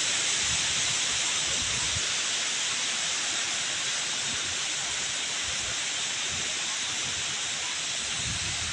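A steady, even hiss, strongest in the high range, that runs on without a break.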